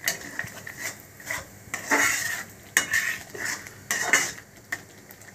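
Steel spatula scraping and clinking against a metal kadai in irregular strokes as thick masala paste for chole is stirred.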